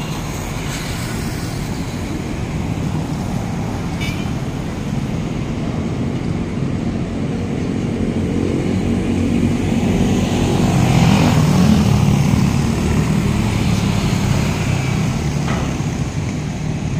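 Road traffic passing close by: a continuous rumble of engines and tyres, swelling as a louder vehicle goes past about eleven seconds in, then easing.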